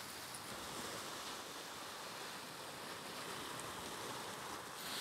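Steady wash of sea waves breaking against the rocks of the shoreline.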